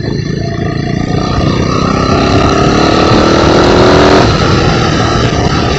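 Custom chopper motorcycle riding on the road: its engine runs under heavy wind and road noise. A steady tone from another vehicle grows louder and then stops about four seconds in.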